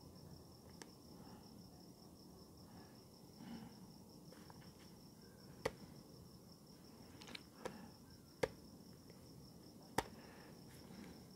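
Crickets chirping in a steady, fast high trill, with a few scattered sharp clicks of a laptop keyboard being pressed.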